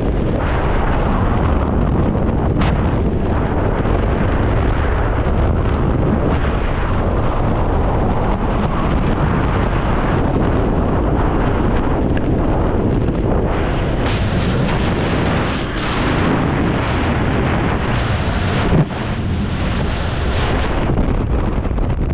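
Freefall wind rushing and buffeting hard over a skydiver's camera microphone, a loud, steady roar. A single sharp thump comes near the end, and the rush is a little lower after it.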